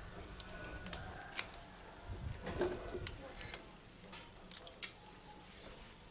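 A handful of sharp clicks and light taps from hands handling the wiring and plastic connectors of a stripped Yamaha Mio Smile scooter.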